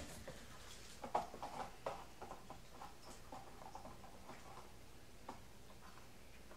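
Faint, scattered clicks and light knocks of a plastic Aikiou puzzle feeder bowl as a puppy noses into its compartments and eats from it.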